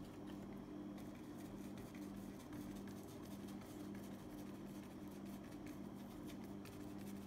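Faint scratchy dabs of a bristle paintbrush working acrylic paint on a canvas sheet, many small strokes, over a steady low hum.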